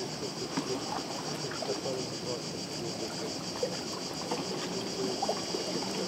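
Small lake waves lapping under a steady, high-pitched insect chorus.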